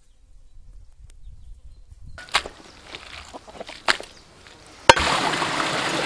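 A few sharp knocks, then from about five seconds in the steady rush of water flowing over rocks in a stream.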